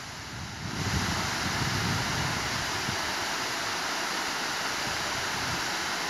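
Steady rushing of a tall waterfall, rising about a second in and then holding even, with wind rumbling on the microphone.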